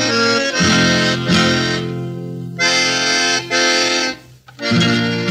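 Instrumental music led by an accordion playing held chords. It breaks off briefly near the end, then comes back in.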